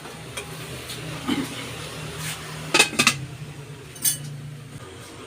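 Metal cutlery clinking against dishes: a few sharp clinks, the loudest a pair about three seconds in and one more about a second later, over a steady low hum.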